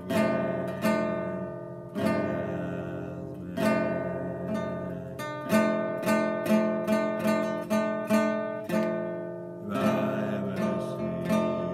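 Acoustic guitar strummed in a steady rhythm, chords ringing between the strokes; a man's singing voice comes in near the end.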